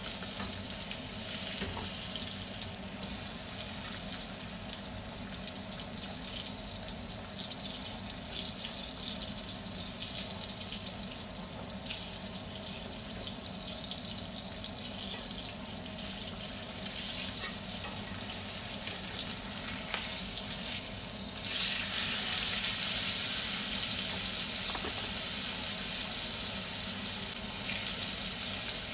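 Beef steak sizzling steadily as it fries in foaming fat in a cast-iron skillet. The sizzle grows louder and brighter about two-thirds of the way through.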